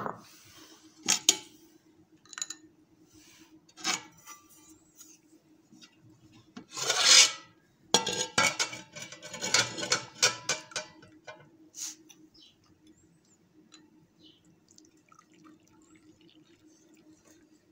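Steel cookware and utensils clinking and scraping as tea is served: a few sharp clinks, a louder scrape about seven seconds in, then a quick run of rattling clinks. After that it dies down to a faint steady hum with occasional small ticks.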